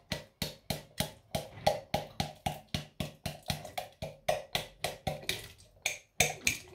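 A hand repeatedly slapping the base of an upturned glass jar of cooked chickpeas, about four sharp knocks a second, to knock the chickpeas out into the pot. The knocking stops near the end.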